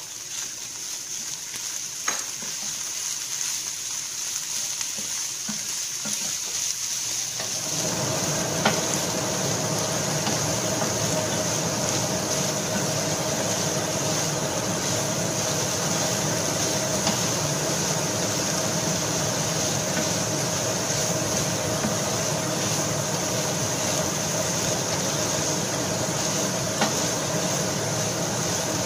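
Diced chicken sizzling in hot oil with garlic and onion while a wooden spatula stirs it, with occasional scrapes and ticks against the pan. About seven seconds in, a steady lower hum joins and holds to the end.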